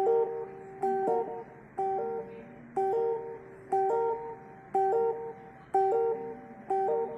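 Music on a plucked string instrument: a short strummed or picked figure of a few notes, repeated about once a second in a steady loop.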